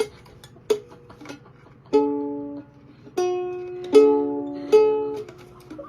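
Background music: a plucked-string tune of single notes and strummed chords, each struck sharply and dying away.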